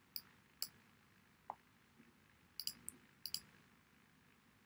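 Faint computer mouse clicks: a couple of single clicks, then two quick double clicks, over quiet room tone.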